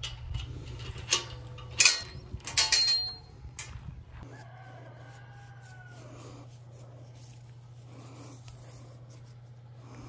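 A rooster crows once, a drawn-out call of about two seconds that rises and then falls, starting about four seconds in. Before it come loud rustling and knocks close to the microphone, as halter and lead ropes are handled.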